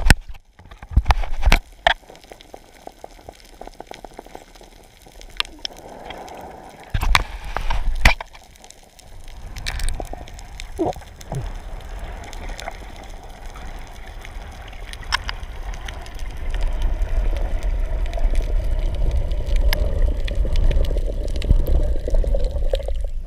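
Underwater water noise picked up by a submerged camera: a low rumble with scattered sharp clicks and knocks. In the last several seconds it turns louder and sloshier as the camera nears the surface.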